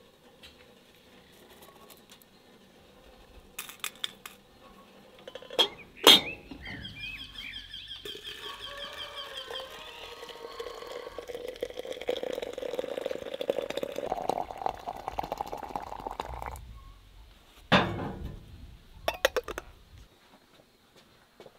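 Water being poured into a glass teapot of loose-leaf tea for about eight seconds, its pitch rising as the pot fills. Sharp glass-and-metal clinks come just before the pour and again near the end, with birds chirping faintly.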